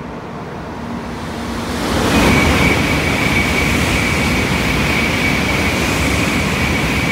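Shinkansen express passing through the station at speed without stopping. A rushing noise builds over about two seconds, then holds loud and steady with a high, steady whine on top.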